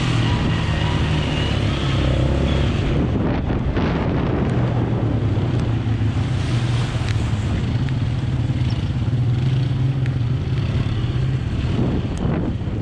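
Quad bike (ATV) engine running steadily under way through muddy puddles, with wind buffeting the microphone and wheels splashing through the mud.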